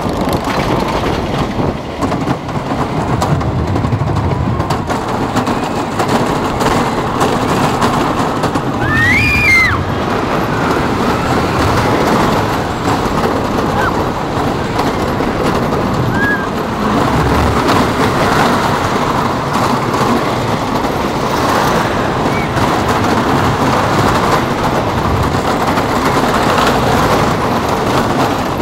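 Joris en de Draak wooden roller coaster train running at speed over its wooden track, heard from the front seat: a loud, continuous rumble and clatter. A rider gives a brief high-pitched shout about nine seconds in.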